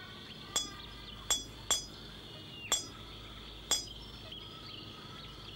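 Hammer striking a chisel against a stone tablet, five sharp clinking taps spread irregularly over about three seconds, each with a brief bright ring.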